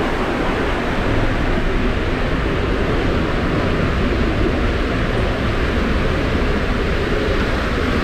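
Loud, steady rush of water and a rider's body sliding down the inside of an enclosed fibreglass tube body slide (WhiteWater West AquaTube): a continuous rumbling wash with no breaks.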